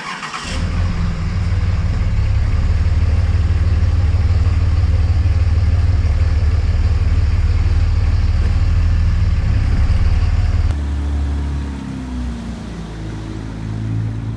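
Engine running under way with a heavy, steady low rumble. About eleven seconds in, the sound cuts to an engine whose pitch rises and falls.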